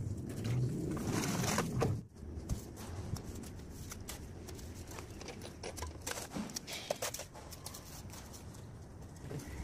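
Small splashes, scrapes and clicks of hands and a trowel working wet cement in shallow standing water. A denser rustling sound fills the first two seconds and stops abruptly.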